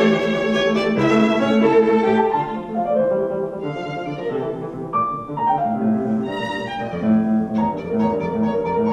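Violin playing a classical piece: a quick succession of changing notes, settling into a long held note near the end.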